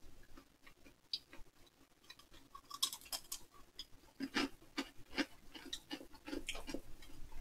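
A person chewing small pieces of chocolate cereal: faint, irregular crunches and mouth clicks.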